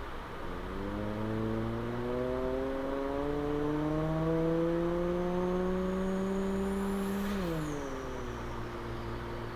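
A person's voice imitating a car engine revving up: a buzzing vocal tone climbs slowly in pitch, dips once about three seconds in as if shifting gear and climbs again, then drops off sharply near the end.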